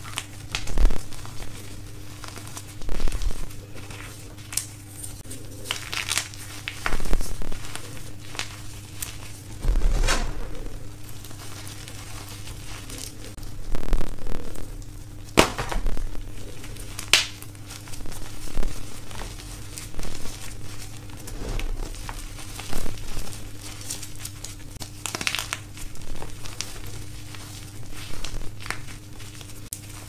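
Blocks of dyed gym chalk crushed and crumbled in bare hands: dry, crumbly crunches that come in irregular bursts every second or two.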